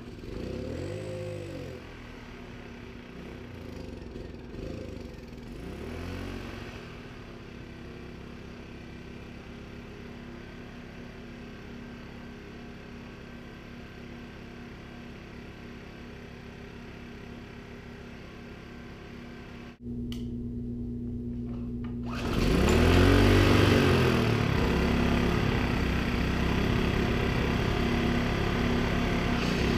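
Small Yardworks 1000 W generator's engine firing briefly and dying, twice, then about three-quarters of the way in catching and running loudly, its speed surging up and down, as it tries to run on its own fuel after a carburetor cleaning.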